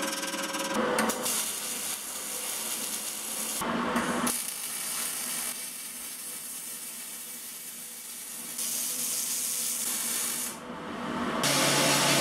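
Steel being worked in short bursts. It opens with a hand wire brush scrubbing the steel sheet. Through the middle comes the steady crackling hiss of MIG welding on the hull's sheet steel, and near the end an angle grinder starts grinding the metal with a steady hum.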